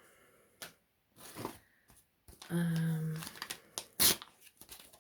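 Paper and packaging being handled: irregular crinkling and tearing rustles, with a sharp tap about four seconds in.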